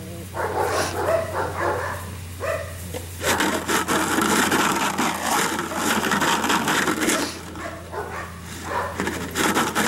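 A hard plastic jug shaken vigorously, its contents rattling loudly from about three seconds in to about seven seconds, and again near the end, as a noise test for a puppy gripping a tug rag. Before the rattling there are quieter, patchier sounds from the puppy tugging on the rag.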